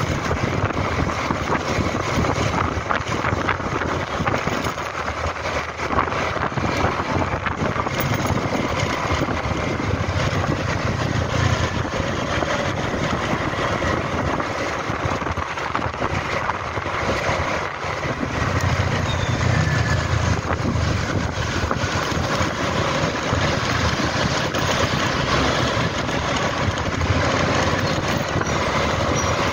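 Motor scooter riding through town: steady engine and road noise with wind on the microphone. The low rumble swells and eases a little as the speed changes.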